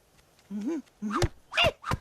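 Four short dog-like yelping calls in quick succession, each rising and then falling in pitch, the later ones louder.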